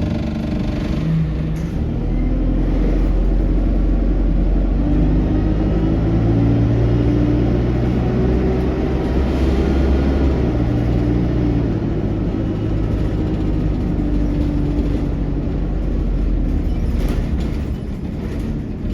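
ADL Enviro200 single-deck bus running under way, heard from inside the saloon, with its engine note climbing and shifting as the Allison automatic gearbox changes gear, over the loud 'hoover' drone this bus is known for.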